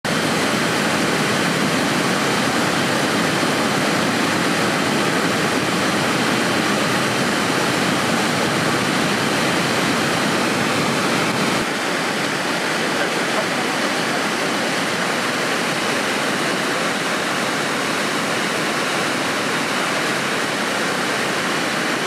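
Shifen Waterfall's wide curtain of water pouring over a rock ledge: a steady roar of rushing, crashing water. About halfway through, the deepest part of the rumble drops away and the roar becomes slightly quieter.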